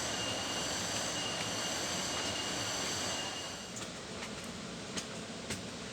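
Steady rushing of a waterfall under a thin, high steady whine that cuts off about three and a half seconds in, followed by a few scattered sharp clicks.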